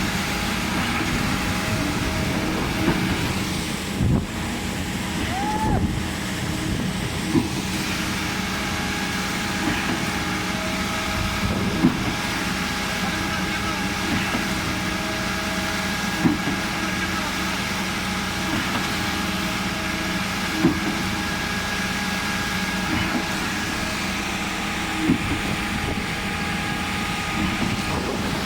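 DY 57 concrete pump running steadily, its engine giving a continuous drone. A short knock comes about every four and a half seconds as the pumping cylinders change stroke.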